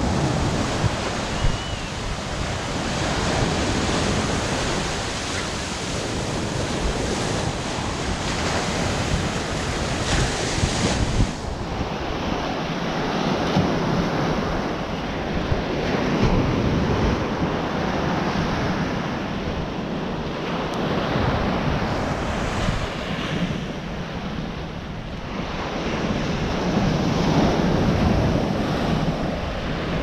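Ocean surf breaking and washing up the beach, swelling and easing every several seconds, with wind buffeting the microphone.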